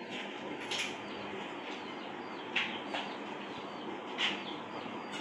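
Small birds chirping over a steady hiss, with a few brief, sharper chirps scattered through.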